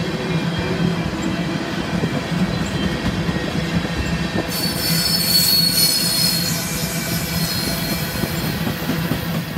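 Freight train of tank cars rolling past, a steady rumble of wheels on the rails. About halfway through, a high metallic squeal from the cars' wheels joins in.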